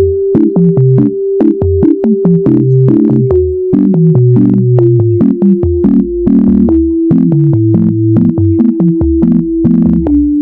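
Electronic background music: a long held synthesizer note over a stepping bass line and a steady beat.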